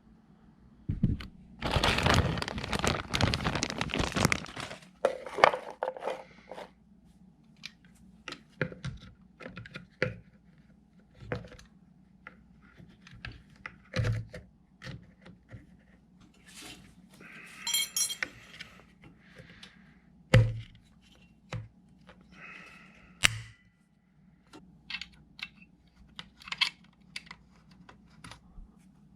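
Hands working a sock out of a washing machine's jammed drain pump: a few seconds of loud tearing and scraping near the start, then scattered clicks, knocks and short rattles of the plastic pump being handled. The sock wound tightly inside it is what jammed the pump.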